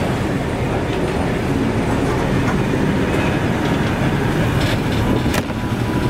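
Heritage passenger carriages rolling past with a steady rumble, their wheels clicking over the rail joints now and then, with a sharp clack about five seconds in.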